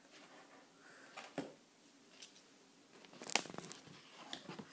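A fork spreading a soft cooked filling over a pastry base in a metal tart tin: faint scrapes and a few light clicks, with a short burst of scraping about three seconds in.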